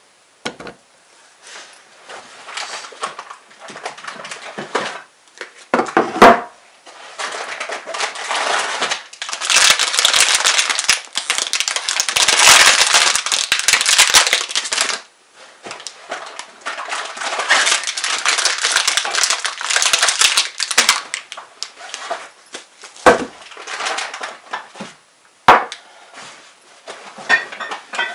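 Plastic bags rustling and crinkling in long stretches as food is unpacked, with a few sharp knocks of tins and packages set down on a wooden table.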